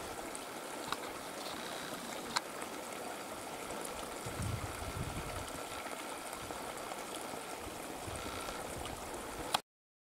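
Steady rushing outdoor background noise, with a couple of faint ticks; it cuts off suddenly near the end.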